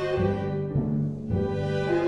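Orchestral music led by bowed strings: held higher notes over a lower line that moves to a new note about every half second.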